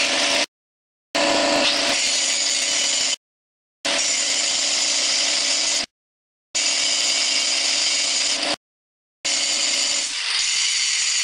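Angle grinder running steadily as it cuts steel on a Model T rear spring assembly. The sound drops out completely for about half a second every two seconds.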